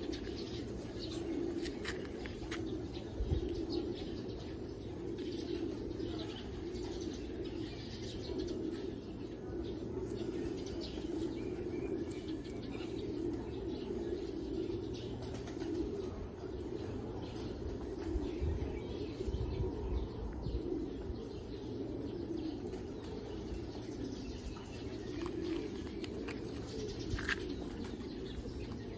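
Racing pigeons cooing steadily in a loft, a continuous low murmur of many birds, with a few short wing flaps and chirps scattered through it.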